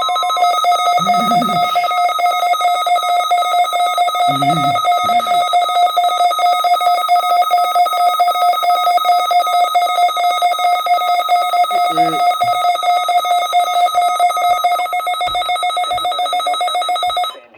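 Electronic warning-system test signal played over a radio broadcast: a loud, rapid trilling alarm tone of several pitches at once, holding steady and cutting off abruptly near the end.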